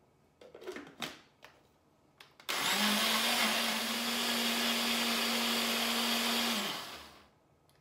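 A few light knocks, then a countertop blender's motor starts abruptly about two and a half seconds in. It runs steadily for about four seconds with a constant hum, puréeing tinned tomatoes with basil and garlic into pizza sauce, then winds down.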